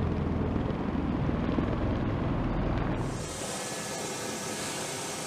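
V-22 Osprey tiltrotor aircraft noise: a low, rapidly pulsing rumble, then about three seconds in a change to a steady high-pitched turbine hiss and whine.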